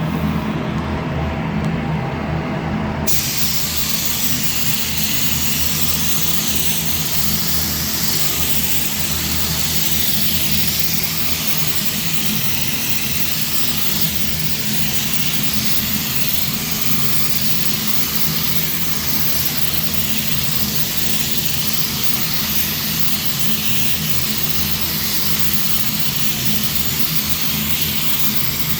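A spray gun hissing steadily as it sprays finish onto wood panels, starting suddenly about three seconds in, over a steady low machine hum.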